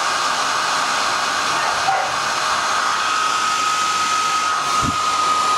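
Hair dryer running: a steady rush of air with a constant whine, cutting off at the very end.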